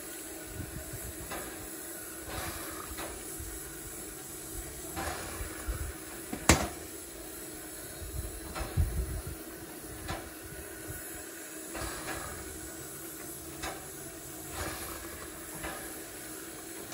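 Narrow-gauge steam locomotive giving off a steady hiss of steam, with scattered faint knocks and one sharp metallic knock about six and a half seconds in.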